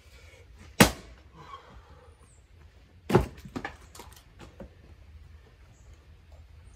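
Hardwood firewood being split by hand with a heavy splitting tool: two sharp strikes about two and a half seconds apart, the second followed by a few lighter knocks.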